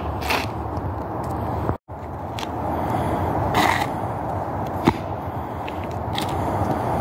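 Sneakers scuffing and stepping on asphalt during martial arts footwork, with a few sharp slaps, over a steady background rumble. The sound cuts out for a moment just before two seconds in.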